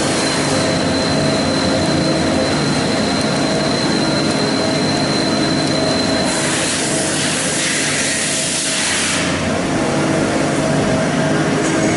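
Haas TL-15 CNC lathe running: a steady machine hum with a thin high whine that stops about six seconds in, followed by a rush of hiss lasting about three seconds.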